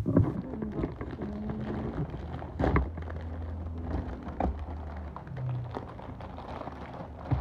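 Foil-laminated plastic biscuit packet crinkling and tearing as it is pulled open by hand, with a few sharp crackles among the rustling.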